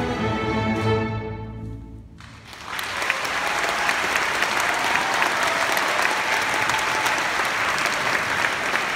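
A school orchestra's bowed strings hold a final chord that dies away about two seconds in. The audience then breaks into steady applause.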